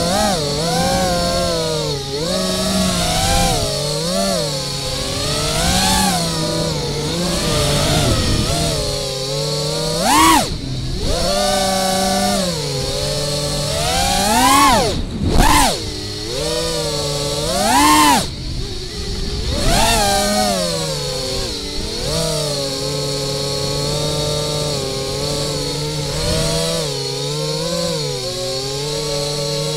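An FPV quadcopter's four 2207 brushless motors whine as heard by its onboard camera, the pitch rising and falling as the throttle changes. Three sharp punch-outs in the middle send the whine climbing steeply before it drops back.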